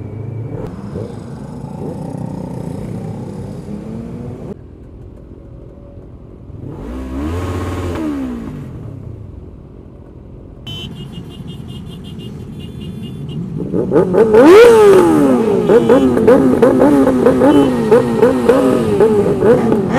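Motorcycle engines revving, rising and falling in pitch: a swell of engine noise about seven seconds in, then from about fourteen seconds several engines revving together, loud and overlapping.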